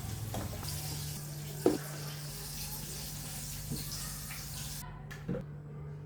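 Kitchen noise: a steady hiss that cuts off about five seconds in, over a low steady hum, with three short knocks.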